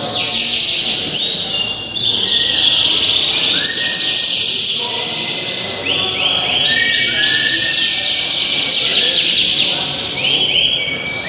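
Many canaries singing at once in a dense chorus of fast trills and short rolling notes that overlap without a break.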